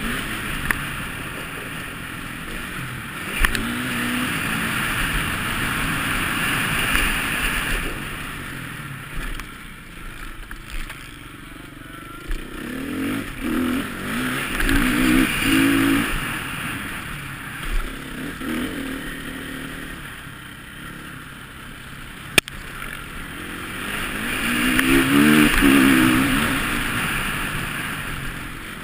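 Motocross bike engine revving up and down again and again as the rider accelerates and backs off along a dirt track, over a steady rushing hiss, with one sharp knock about 22 seconds in.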